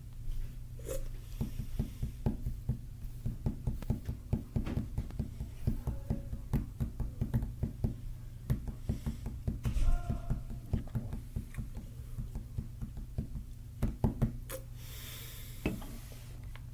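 A run of soft, low knocks and taps, roughly three or four a second, over a steady low hum; they stop about 14 seconds in.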